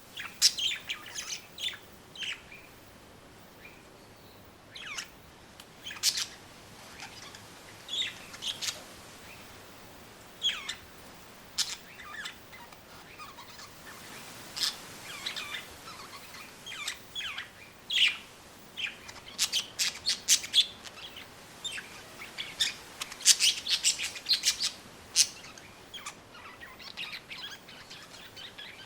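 Two budgerigars (budgies) chirping and chattering in short, irregular calls, busier in the second half, over faint steady wind noise.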